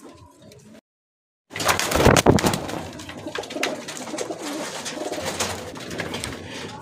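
Domestic pigeons cooing in a loft, with a loud rustling burst about two seconds in. The sound drops out completely for under a second near the start.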